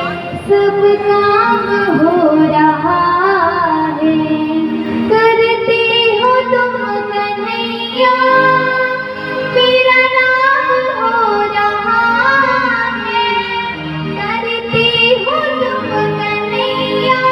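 A woman's voice singing a Hindi devotional bhajan, drawing out long notes that glide and bend, with musical accompaniment underneath.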